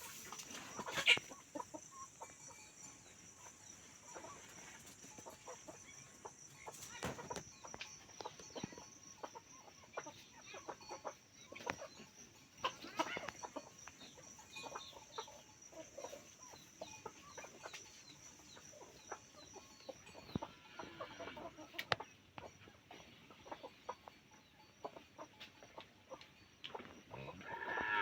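Desi chickens clucking, with many short, scattered calls and a louder call about a second in. A steady high-pitched whine runs behind them and fades about two-thirds of the way through.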